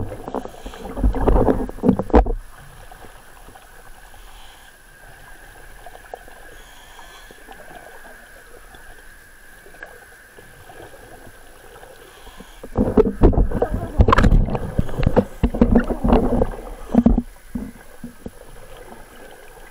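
Scuba regulator exhaust bubbles heard underwater: a long bubbling rumble over the first two seconds, then another run of bubbling pulses from about thirteen to seventeen seconds, with a quieter steady hiss between.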